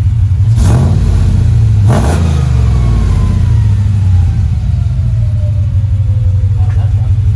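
Turbocharged Ram 1500 Hemi V8 idling through a makeshift exhaust, blipped twice in quick succession in the first two seconds. After the blips a thin whistle slides slowly down in pitch, the turbo spinning down.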